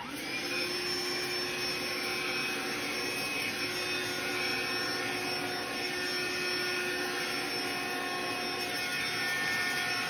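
SOWTECH rechargeable cordless handheld cyclonic vacuum switching on, then running steadily: a rush of suction air with a steady motor whine over it.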